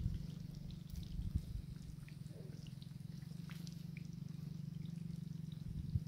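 Faint rustling of grass and handling noise as a hand reaches into a clump and takes hold of a snared white-breasted waterhen, with small scattered ticks over a low steady hum.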